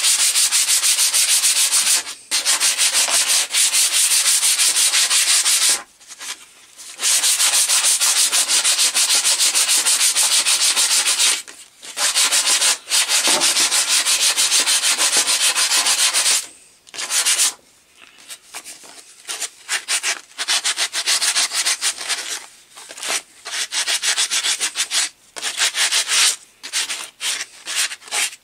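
Hickory axe handle being hand-sanded with an abrasive sheet, rubbing it down ready for oiling. Fast back-and-forth rubbing in long runs with a few short pauses, turning to shorter, separate strokes in the last third.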